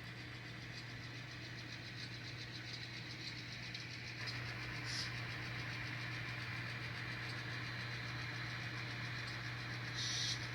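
Sound-equipped N scale diesel locomotives: the sound decoder's engine sound runs steadily through the small onboard speaker and steps up in level about four seconds in, with two short hisses, one near the middle and one near the end.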